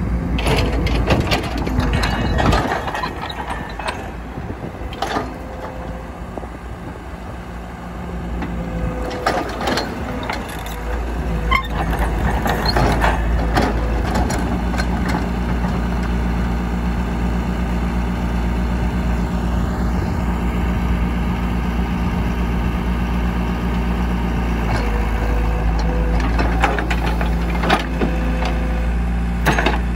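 Caterpillar E120B hydraulic excavator's diesel engine running steadily while the machine digs soil, its note rising about a third of the way in as the hydraulics take the load. Sharp metallic clanks from the bucket and boom come now and then.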